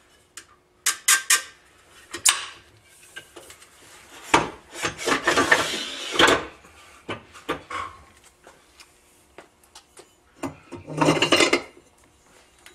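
Metal mounting hardware and tools being handled: irregular clinks, clatter and scraping as a motor-mount bracket and its bolts are worked into place on a boat's jack plate, busiest in the middle and again near the end.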